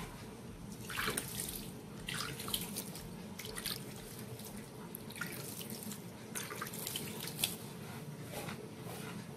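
Salted water splashing and dripping in irregular spatters as it is sprinkled by hand over dry couscous grains, the first moistening of the couscous before steaming.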